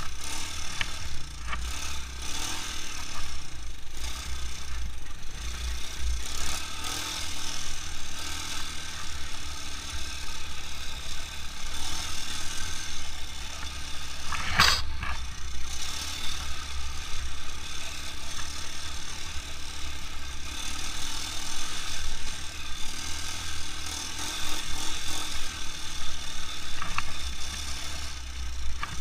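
A 200 cc quad bike's engine running steadily while riding, with rattling from the machine. One sharp knock about halfway through.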